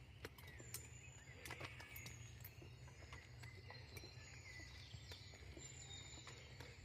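Faint birdsong of several small birds, short chirps and high thin whistles, over a steady low outdoor rumble, with scattered light ticks.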